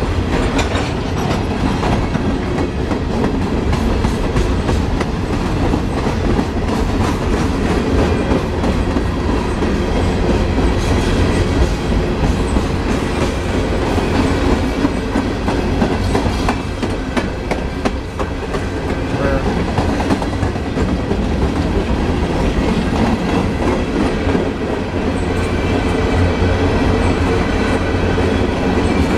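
Freight train of open-top hopper cars rolling past: a steady rumble of steel wheels on rail, with a continuous clickety-clack of wheels over the rail joints.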